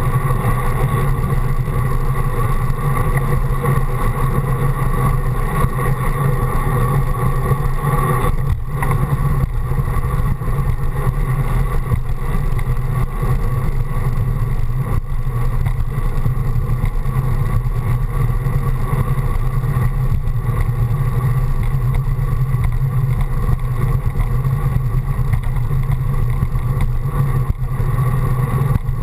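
Steady wind rush and tyre-on-pavement rumble picked up by a GoPro mounted on the handlebars of a moving road bike. The low rumble is the loudest part and does not change.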